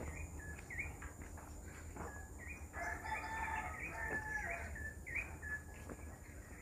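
A rooster crowing once near the middle, a call of about two seconds, while small birds chirp with short rising notes every second or so.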